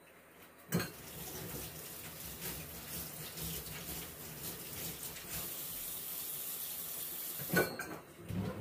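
Water running from a tap into a sink, with dishes and cutlery clinking. It starts with a clunk about a second in and stops near the end.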